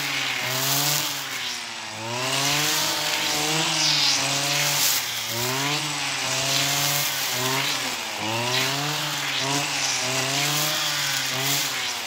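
Petrol brush cutter running at high speed, its engine pitch rising and falling about once a second as the cutting head is swung back and forth through tall brachiaria grass.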